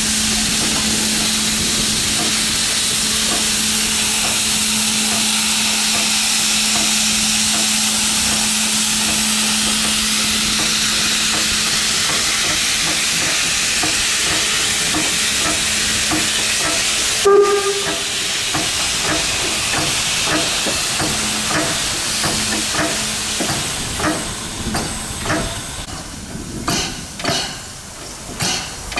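DR class 50 steam locomotive blowing steam from its open cylinder drain cocks as it moves slowly: a loud, steady hiss over a low hum. Past the middle a sharp click cuts it off, and irregular metallic knocks and clanks follow.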